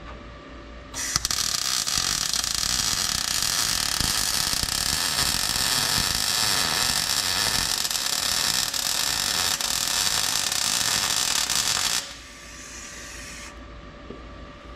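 MIG welder running a bead on steel: a steady crackling sizzle that starts about a second in and runs for about eleven seconds, then stops abruptly, followed by a fainter hiss for about a second and a half.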